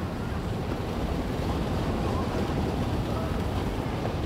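An articulated SOR NB 18 CNG city bus driving slowly past, its engine and its tyres on the snowy road making a steady rushing noise.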